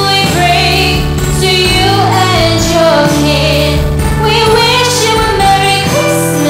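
Background Christmas song with singing over a steady accompaniment.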